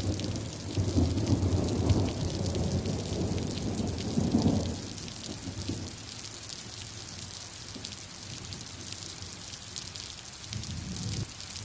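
Steady rain pattering, with a long low rumble of thunder that dies away about five seconds in and a shorter rumble near the end.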